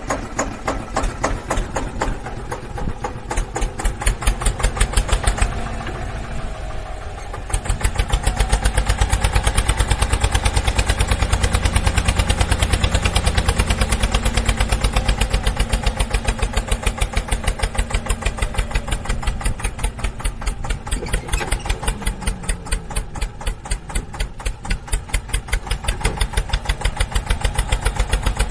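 An engine running with a rapid, even chugging, getting louder about seven seconds in.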